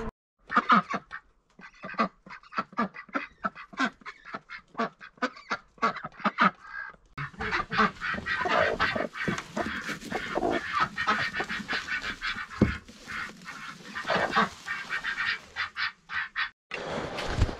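Domestic hens clucking: a quick run of short calls, thicker from about seven seconds in, stopping abruptly near the end.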